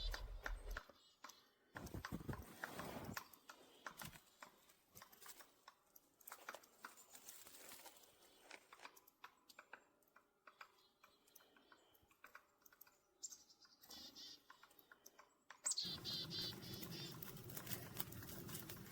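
Faint, irregular clicks and crackles, with a denser, louder stretch of rustling in the last few seconds.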